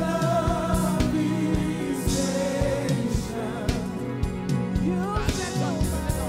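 Live gospel song: a singer's voice over a band, with a drum kit played in steady time, its drum hits sharp and regular.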